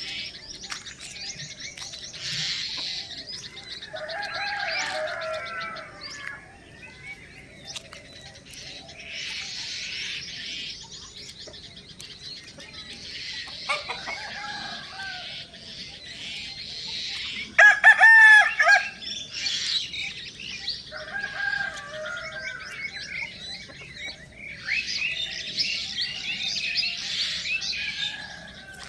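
Small birds chirping and twittering throughout, with chickens clucking now and then. A rooster crows loudly once, about two-thirds of the way through.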